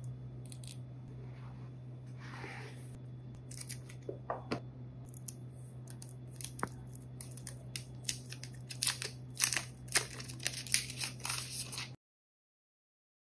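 Smartphone retail box and its packaging being handled and opened: cutting and tearing of the wrap, then rustling and sharp clicks that come faster and louder toward the end, over a steady low hum. The sound cuts off abruptly near the end.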